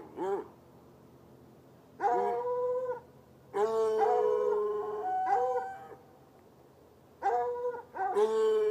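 Two hounds baying in drawn-out howling calls, in three bouts of one to two seconds with quiet gaps between. In the middle bout two voices call at once at different pitches.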